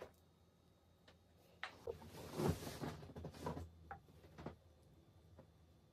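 A ladle scooping stew out of a metal saucepan and serving it: a few faint knocks and clicks of the ladle against the pot, with a longer stretch of scraping and scooping noise in the middle.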